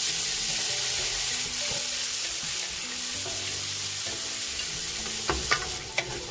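Chopped tomatoes dropped into hot oil and fried onions, sizzling in the pan, while a wooden spatula stirs them through, with a few knocks and scrapes of the spatula against the pan near the end.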